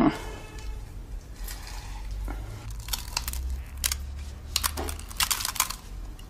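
Metal potato ricer being worked over a saucepan of boiled potatoes: scattered light clicks and soft crackles of the hinged handles and the mashed potato being squeezed through, with a low steady hum beneath.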